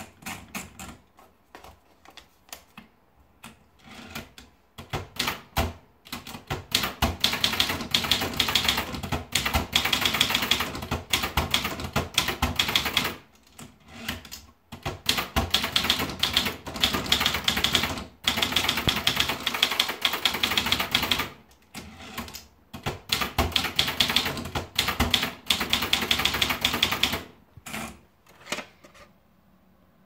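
Brother De Luxe manual portable typewriter: a few separate clicks as the paper is wound in at the platen knobs, then rapid typing, the typebars clacking against the platen in long runs broken by short pauses.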